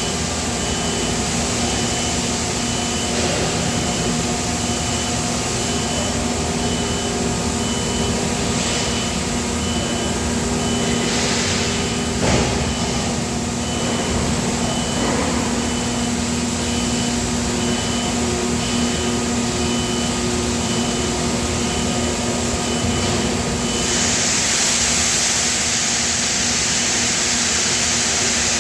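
Steady industrial machine noise from an 850-ton UBE die casting machine and the surrounding plant, with a continuous low hum. A high beep repeats about twice a second and stops about 24 seconds in, when a louder hiss starts. There is a single knock about 12 seconds in.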